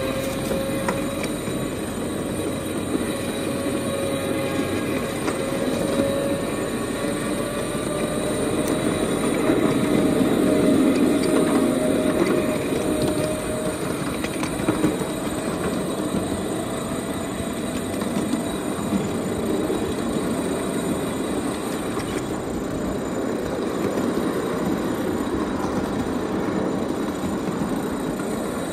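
Ride-on backyard miniature railway train rolling along steel track, its wheels running and clattering on the rails without a break. A thin whine, rising slightly in pitch, runs over it through the first half and fades out about halfway through.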